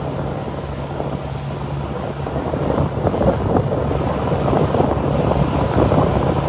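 Motorboat underway: its engine gives a steady low hum beneath heavy wind buffeting the microphone, with water rushing past the hull and the flag snapping in the wind.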